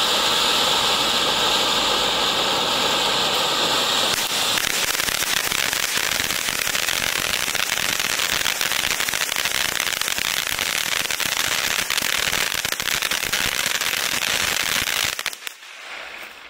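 DXF047 Bear Fountain ground fountain firework burning: a steady rushing hiss of sparks, which about four seconds in turns into a dense, rapid crackle that runs on evenly and stops abruptly near the end as the fountain burns out.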